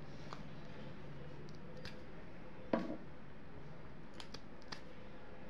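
End-cutting pliers gripping small nails and pulling them out of a graphite badminton racket frame: a few light metal clicks and one sharp snap about three seconds in, over a steady low hum.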